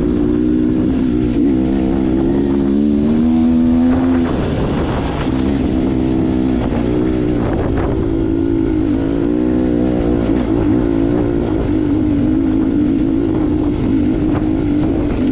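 Bicycle ridden up a steep, stony track: wind rumbling on the microphone, tyres and frame rattling over rocks with a few sharper knocks, and a steady humming drone that wavers in pitch.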